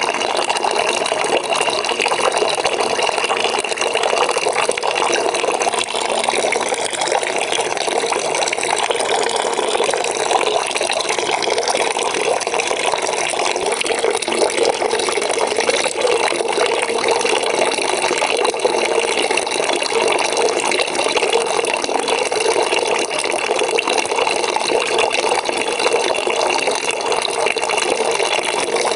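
Water pouring steadily into a bucket as it fills, an even, unbroken splashing.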